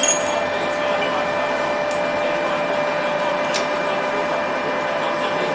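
A motor-driven machine running steadily: an even whirring noise with a constant humming tone.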